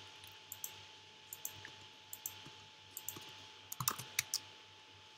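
Computer keyboard keystrokes, sharp clicks in small groups of a few taps, with a quick flurry about four seconds in and then stopping, over a faint steady hum.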